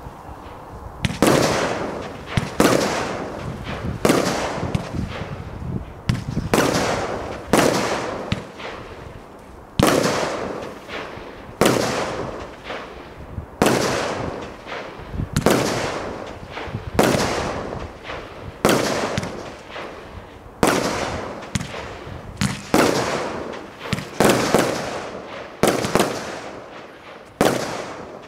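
Zeus Fireworks Wave Willow 19-shot barrage cake firing its shots one after another, about one every one and a half to two seconds, starting about a second in. Each shot is a sharp bang that trails off over about a second.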